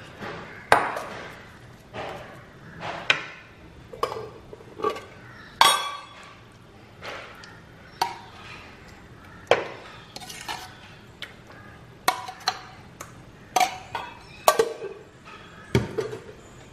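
Steel spoon clinking and scraping against a stainless-steel serving bowl and a plate as food is spooned out: a string of irregular sharp clinks, some ringing briefly.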